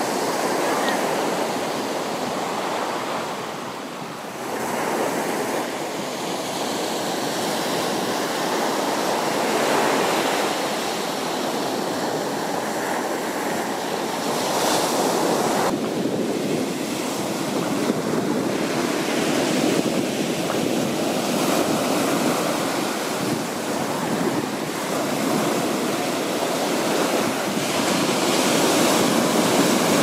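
Surf breaking and washing up a sandy beach: a continuous rushing that swells and eases as each wave comes in.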